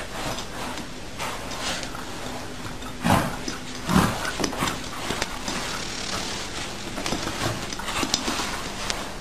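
A fabric pet bed being tipped and dragged across the floor, with scraping and rustling and two louder thumps about three and four seconds in.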